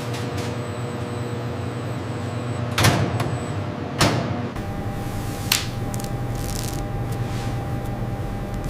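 A steady low hum with two sharp clunks about a second apart near the middle, like a door or lid being knocked or shut. A lighter click follows a moment later, and the hum shifts, picking up a faint steady tone.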